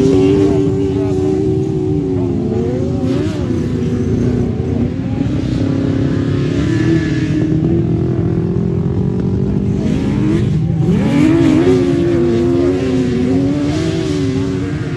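1000cc grasstrack racing sidecar outfits at full race pace, their engines revving up and down as the riders work the throttle through the bends. The engine note drops about ten seconds in, then climbs again as they accelerate away.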